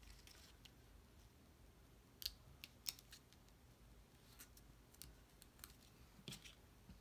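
Faint handling of paper cardstock: a few short, crisp ticks and rustles as glued paper pieces are pressed and shifted on a card frame, the two sharpest a little after two seconds in.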